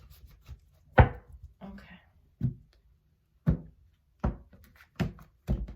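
Tarot cards being laid down on a table one by one, a series of sharp taps roughly a second apart, with two close together near the end.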